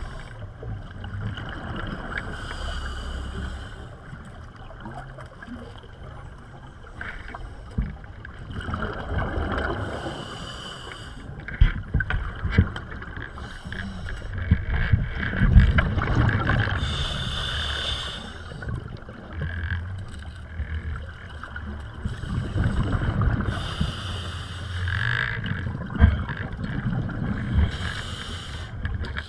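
Scuba diver breathing underwater through a regulator: a rush of exhaled bubbles about every six or seven seconds, over a low rumble of water moving past the camera, with a few sharp knocks.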